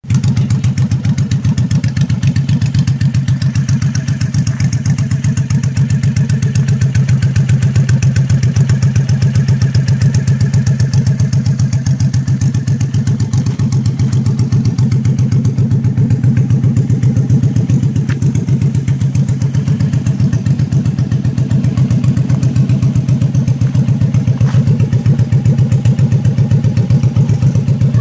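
Suzuki Boulevard M109R's 1783 cc V-twin idling steadily through a home-made exhaust: a loud, even run of low firing pulses with no revving.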